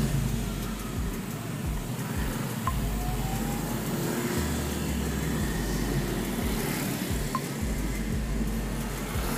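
Steady road traffic noise with a low rumble, and two brief beeps, one about three seconds in and one about seven seconds in.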